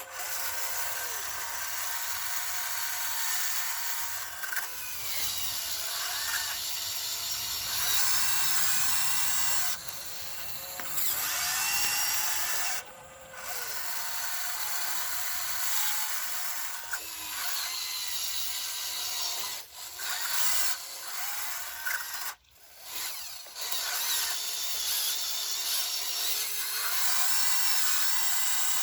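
Huina 1599 RC excavator's small electric motors and gearboxes whirring as it is worked, stopping and starting again and again, with short whines that rise and fall as the motors speed up and slow down.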